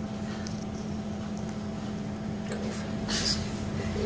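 Steady drone of a city double-decker bus heard from inside its upper deck, a low engine hum with a held tone. About three seconds in, a short burst of hiss.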